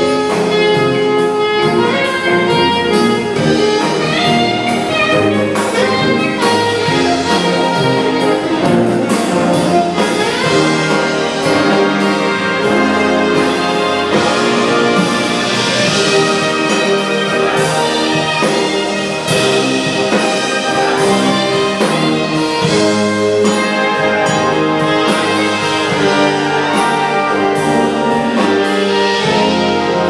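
A full concert wind band playing live: trumpets, trombones, saxophones and clarinets together over percussion that keeps a regular beat.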